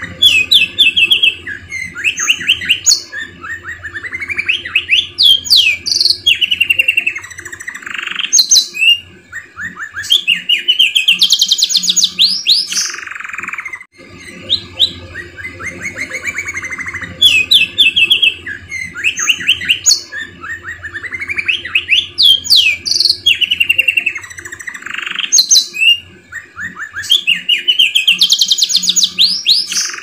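Domestic canary singing a continuous song of rapid trills, rising and falling rolls and short buzzy phrases. The same run of about 14 seconds repeats, a looped canary tutor song (masteran) of the kind played to teach young canaries their song.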